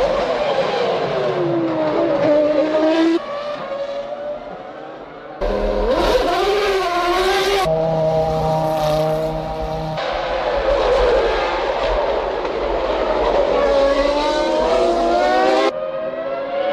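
Formula One cars' V10 engines at high revs, their pitch falling and rising as cars pass and shift gears. The sound jumps abruptly several times where shots are cut together.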